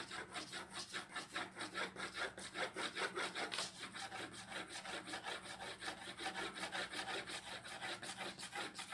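Graphite pencil shading on drawing paper: quick, even back-and-forth hatching strokes scratching at about four or five a second. The strokes are light vertical lines, laying in tone band by band on a cone drawing.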